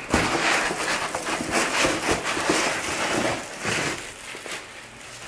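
Plastic wrapping rustling and crinkling as a packed item is pulled out from between foam inserts in a cardboard box, dying down about four seconds in.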